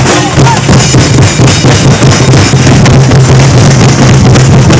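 Very loud music with heavy drums and a strong, steady bass.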